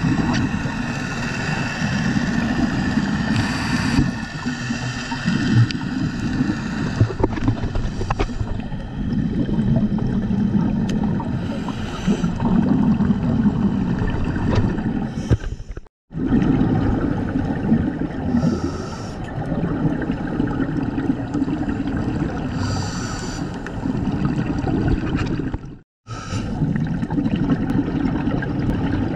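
Underwater sound picked up through a dive camera's housing: a steady low rumble of water noise with a faint steady high whine, and short bursts of bubbling every few seconds from scuba divers exhaling through their regulators. The sound drops out briefly twice.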